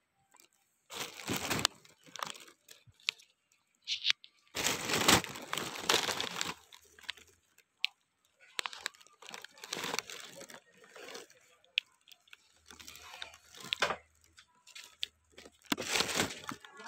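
Rustling, crackling and tearing of katuday (Sesbania grandiflora) branches, leaves and blossoms being handled and plucked, in several separate bursts with short quiet gaps between them.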